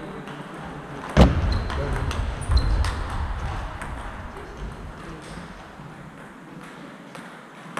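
Table tennis balls clicking off bats and tables in a large sports hall, with scattered clicks throughout. A loud close thump comes a little over a second in and a smaller one about two and a half seconds in, along with two brief high squeaks.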